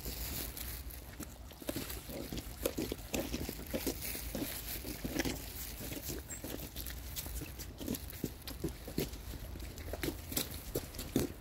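Dog sniffing and snuffling at the snow, a quick, irregular run of short sniffs.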